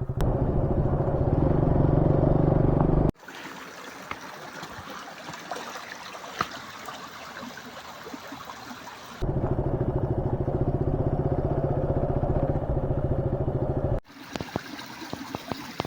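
Motorcycle engine running steadily while riding. It is cut off abruptly twice by a much quieter stretch of faint hiss with scattered small clicks.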